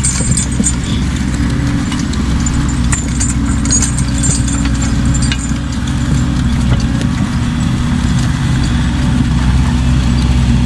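Diesel engine of heavy tiling equipment, likely the excavator, running steadily, with light metallic jingling over it, likely from a horse's harness.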